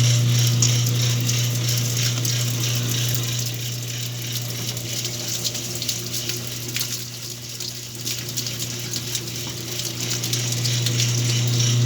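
Whirlpool washing machine running with water rushing through it over a steady low hum. The sound fades somewhat in the middle and builds up again near the end.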